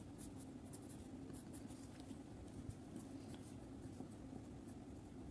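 Wax crayon scratching on paper in short, irregular strokes, faint over a steady low hum.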